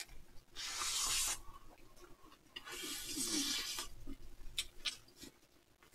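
A person breathing out hard through the mouth while eating a mini hamburger: two long breathy exhalations, the second with a brief hum of the voice, followed by a few faint clicks of chewing.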